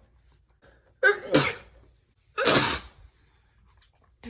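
A woman sneezing twice: a voiced sneeze about a second in, then a breathier, mostly hissing sneeze about a second and a half later.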